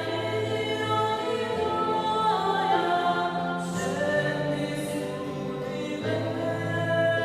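Choir singing a slow sacred song in long held chords, the chords changing every few seconds, with a couple of soft sung 's' sounds about halfway through.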